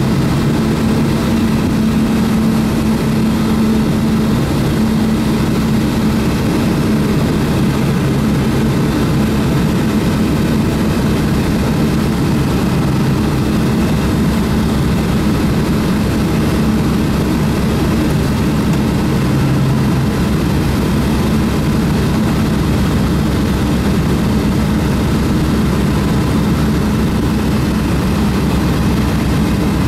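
Aircraft cabin noise: a steady, unchanging engine drone with a low hum, heard from inside the cabin in flight.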